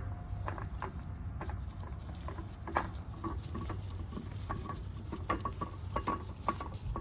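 Light, irregular clicks and taps of an oil filter and tools being handled under the engine, over a low steady rumble.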